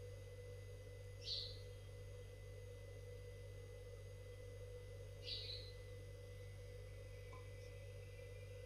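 Quiet room tone with a steady low hum, broken by two short, faint, high-pitched chirps about four seconds apart.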